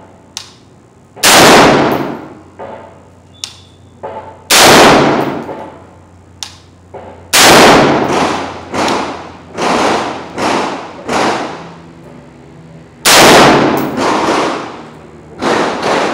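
Gunshots on a shooting range, each with a ringing tail. Four very loud single shots come a few seconds apart, and between them a run of lighter shots about one a second, with a few faint distant shots besides.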